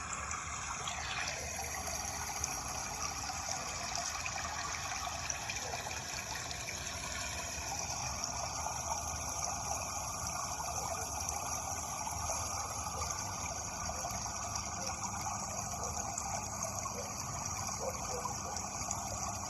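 Steady running water, an even rushing flow without pause.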